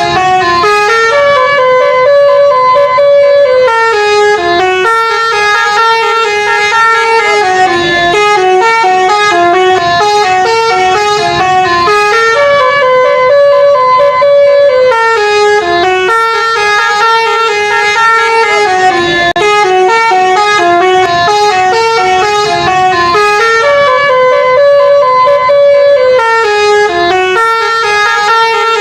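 Bus 'telolet' musical horn playing a multi-note tune that steps up and down and repeats about every ten seconds, without a break.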